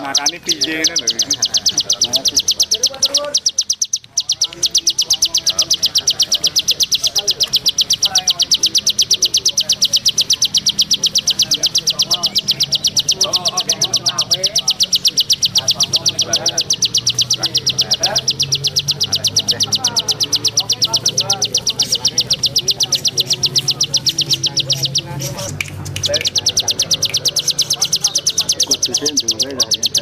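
Small songbird singing a very fast, unbroken trill, with a short break about four seconds in and fainter chirps beneath it.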